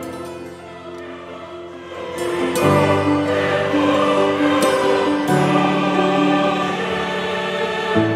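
Background music with long held chords, growing louder about two and a half seconds in.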